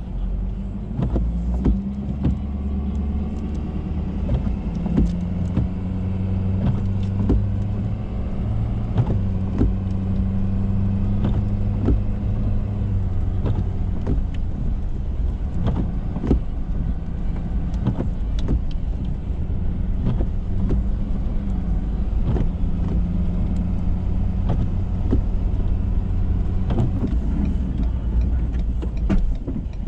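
Ford F-350 pickup driving, its engine running in a steady low drone with scattered short knocks and clicks over the top.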